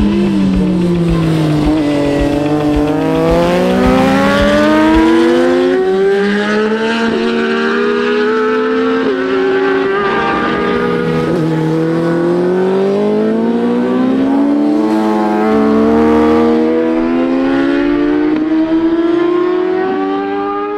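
Racing motorcycle engines at high revs, the pitch climbing through each gear and dropping sharply at the gear changes, several times.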